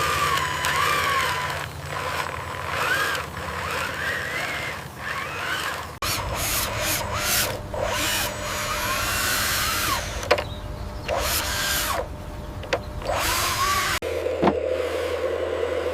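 Small electric motors whining, their pitch rising and falling under changing load, with clicks and rattles; the sound changes abruptly twice.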